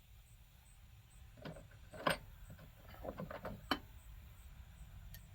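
Pliers clicking and clinking on the metal generator of a Coleman stove as its tip is worked on: a few sharp metal clicks, the loudest about two seconds in, then a quick cluster a second later.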